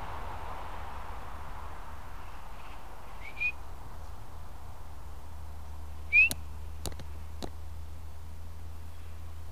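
Two short upward-swooping whistles, the second much louder, followed by two sharp clicks, over a steady low rumble.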